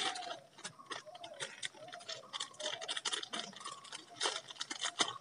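Plastic packaging crinkling and rustling as small parts are unwrapped by hand, a quick irregular run of crackles and clicks.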